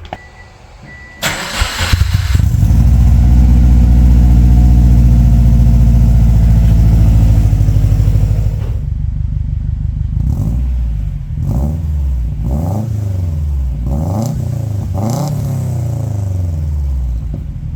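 Subaru Forester XT's turbocharged flat-four engine starting about a second in through its newly fitted exhaust and running loud and steady at a raised idle. After about eight seconds it settles lower and is revved repeatedly in quick blips, each rising and falling in pitch.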